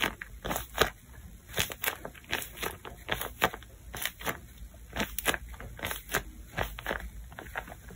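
Hands squeezing and scrunching a tape-covered paper squishy, its glossy surface crinkling and crackling in many sharp, irregular crinkles.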